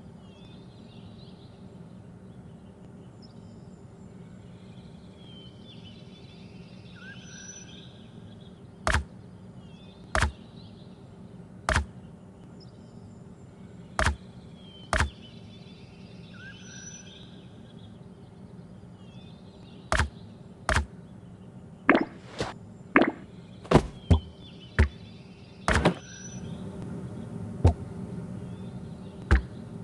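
Scattered sharp knocks and clicks over a steady low hum, coming more often in a cluster in the last third.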